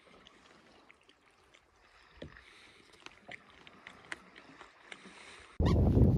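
Faint water lapping and dripping around a gliding kayak, with small scattered ticks. Near the end it cuts suddenly to a much louder low rumble of wind buffeting the microphone.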